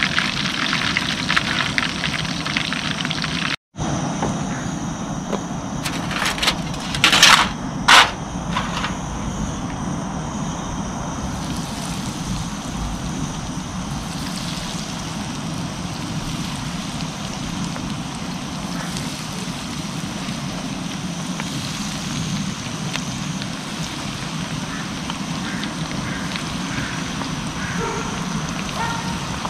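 Hot oil sizzling and bubbling in a cast-iron skillet as battered fish and spot prawns deep-fry, with a few brief louder bursts about seven to eight seconds in.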